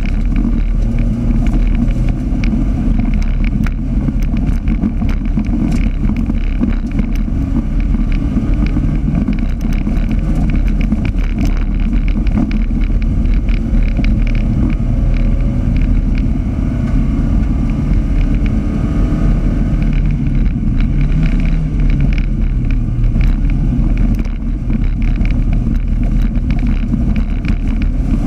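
Autocross race car's engine at full race pace, heard from inside the car, its note rising and falling with throttle and gear changes. Over it runs a constant rattle of rapid clicks and knocks from the car working over the dirt track.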